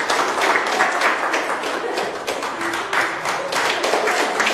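A roomful of people applauding, many hands clapping irregularly.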